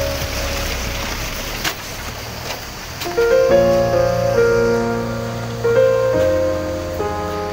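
Background music: a soft, noisy wash, then slow piano or keyboard chords entering about three seconds in over a sustained bass.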